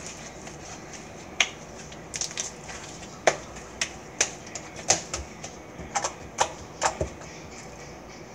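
Slime being stretched, squeezed and worked by hand, giving off an irregular string of sharp little pops and clicks that start about a second and a half in.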